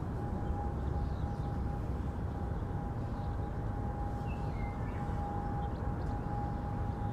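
Steady low rumble of distant road traffic, with a constant faint hum held on one pitch throughout. A few faint short bird chirps come over it, one about four and a half seconds in.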